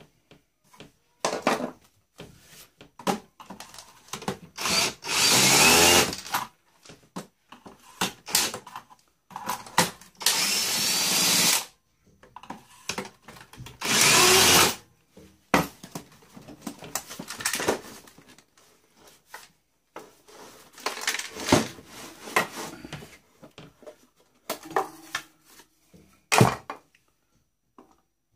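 Small handheld power tool running in short bursts of a second or two, three times, with clicks and knocks of parts being handled between: the boombox's screws and parts being worked loose.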